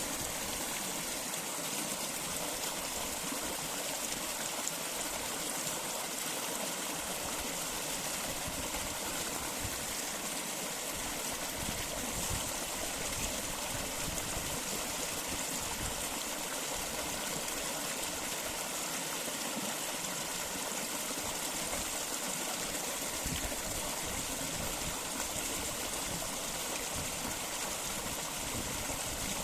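Flowing water running steadily, a continuous even rush and hiss like a stream.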